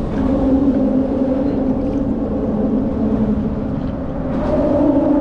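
A steady motor drone holding one pitch, over a low rumble.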